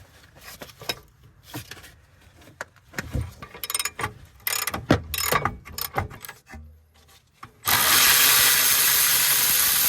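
Metal tools and parts clanking and knocking on a car's wheel hub assembly. Near the end comes a loud, steady hiss.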